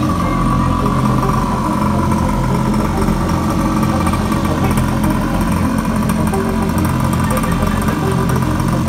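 A 49cc mini quad's small two-stroke engine idling steadily.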